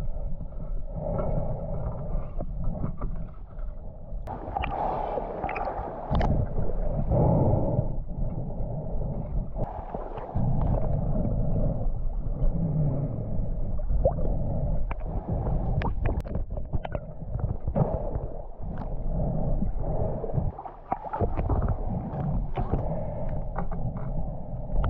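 Muffled water gurgling and sloshing, with scattered sharp clicks and knocks that come more often in the second half.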